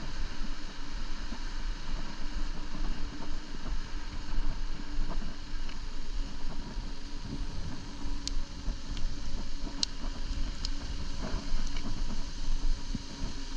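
Wind buffeting the camera microphone over the rumble of mountain-bike tyres rolling on firm sand, with a few sharp clicks about two-thirds of the way through.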